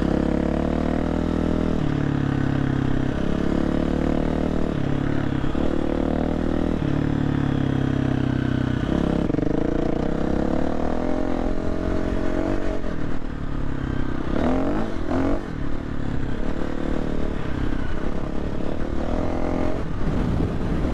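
KTM 350 dirt bike's single-cylinder four-stroke engine being ridden, its pitch stepping up and down with throttle and gear changes, with a couple of quick rising revs about two-thirds of the way in.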